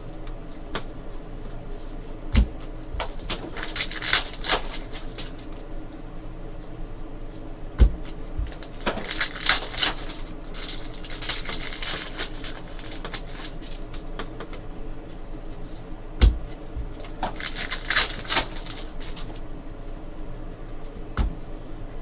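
Trading cards and packs being handled: bursts of rustling and sliding of cards and wrappers, with a few dull knocks of things set down on the table.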